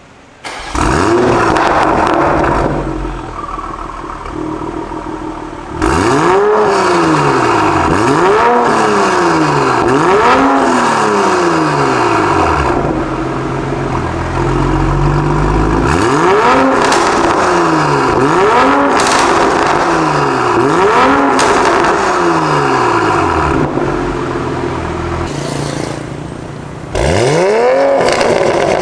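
Toyota GR Supra A90's 3.0-litre B58 turbocharged straight-six, through a catless downpipe and valved cat-back exhaust, idling and being free-revved over and over in short blips, each one rising sharply and falling back to idle.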